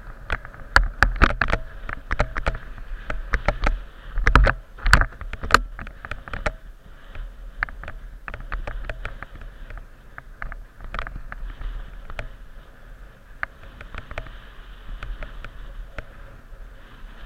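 Mountain bike rattling and knocking as it rolls fast over a bumpy grass trail, heard through a camera mounted on the bike, with a steady low rumble of tyres and wind. The knocks come thick and fast over the first several seconds, then thin out to scattered clicks.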